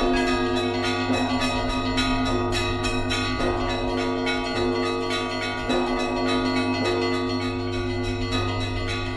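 Church bells ringing: a large bell struck roughly once every second or so, under fast, continuous chiming of smaller bells, all ringing on together.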